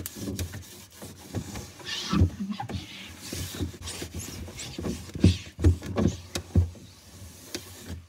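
A cloth wiping a refrigerator's glass shelf: rubbing strokes across the glass, with a series of light knocks and a few sharper thumps in the second half.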